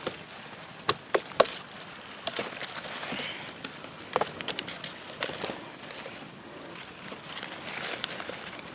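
Campfire kindling being lit and handled: irregular crackles, snaps and rustling.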